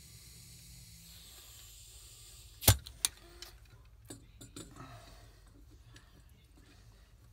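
Faint air hiss from a two-stage regulator pressure-test rig fades out within the first second or two. Then comes one sharp metallic clack, a second click just after it, and light metal clinks as the rig's brass test fitting is fitted into the plug hole of a Daimler Ferret fluid flywheel.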